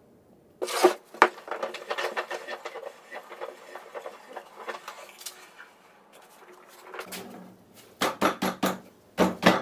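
Homemade wooden bench vise worked by hand: a sharp clack, then a run of small clicks and rattles as the handle on its metal hub is spun and the threaded screw turns, ending in several sharp knocks near the end.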